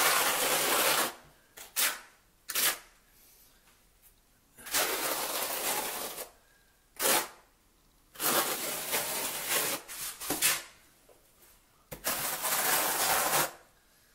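Notched trowel scraping through thinset mortar on the shower floor, combing it into ridges in four strokes of one to two seconds each, with a few short clicks of the trowel between strokes.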